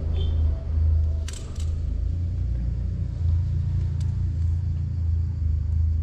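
Wind buffeting the microphone: a steady low rumble, with a few light clicks about a second and a half in and again near four seconds.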